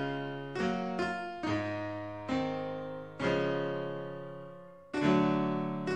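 Solo piano playing slow, quiet chords, each struck and left to ring and fade before the next; a longer-held chord fades away in the middle before a louder chord comes in near the end.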